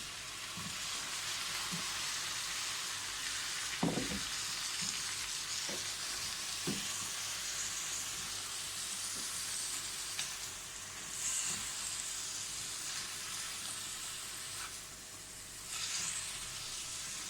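Meat frying in a pot with butter, onion and garlic, sizzling steadily. A spoon stirs it, knocking against the pot a few times, most sharply about four seconds in.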